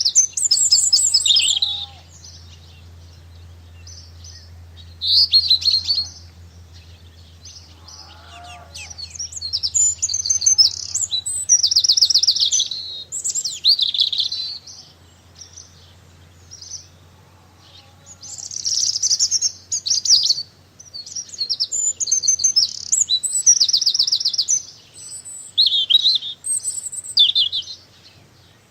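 Small garden birds chirping and twittering in repeated bursts of quick high notes, with short pauses between bursts. A faint steady low hum sits underneath for about the first half.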